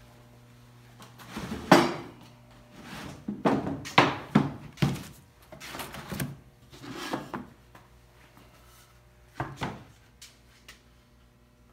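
Wooden blocks and a cherry board being moved and set down on a wooden workbench, giving a run of separate wooden knocks and clunks, with a last pair about nine and a half seconds in.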